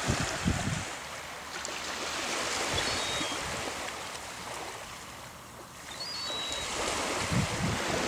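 Sea surf washing on a sandy beach under a steady hiss of wind, with gusts of wind buffeting the microphone at the start and again near the end. Two faint, short, high chirps come in the middle.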